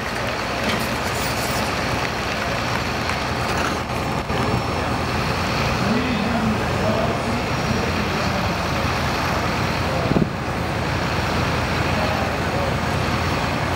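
Engine of an older Ford pickup pull truck with twin upright exhaust stacks, running steadily and loudly while hooked to a pulling sled, with no revving. A single sharp knock comes about ten seconds in.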